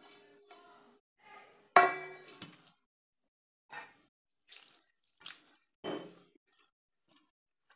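Stainless-steel bowls clanking, with one sharp ringing clang about two seconds in as sliced onions are tipped from one steel bowl into another. It is followed by short, scratchy rustles as a hand stirs the raw onion slices in the steel bowl.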